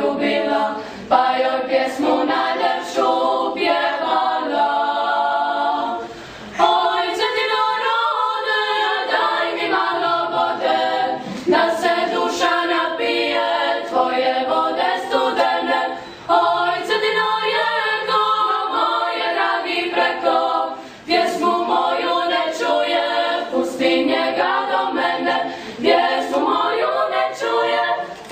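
A youth klapa of mostly girls' voices singing Dalmatian close-harmony song a cappella, in sung phrases with short breaks between them.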